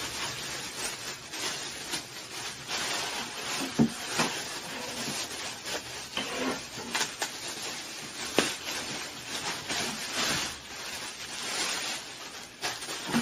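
Clear plastic bag crinkling and rustling as it is handled and an item is pulled out of it, with scattered sharp crackles.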